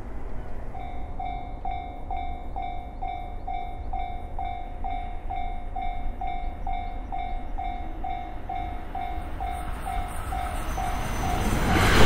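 Japanese railway level-crossing alarm starting about a second in, ringing a single electronic ding about twice a second. Near the end a train rushes up to the crossing, its noise rising quickly.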